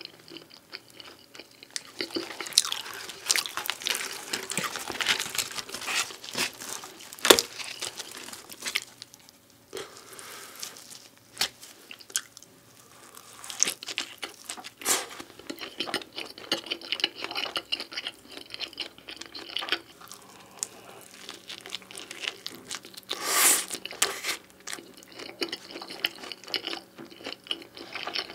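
Close-miked chewing and crunching of pizza, with irregular crisp crust crunches and wet mouth sounds. There are louder sharp crunches about seven seconds in and a louder burst about twenty-three seconds in.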